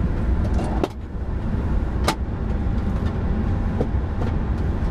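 Steady low rumble of an Airbus A340-300 taxiing onto the runway, with its four CFM56 engines near idle. A sharp click just under a second in and another about two seconds in.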